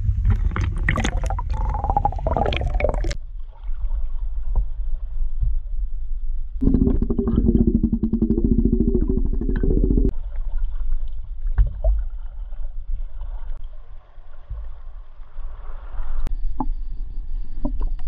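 Water sloshing and gurgling against a handheld action camera as it is dipped in and out of shallow surf, over a heavy low rumble, with scattered knocks and clicks. From about seven to ten seconds in there is a dense, fast bubbling buzz while the camera is under the surface.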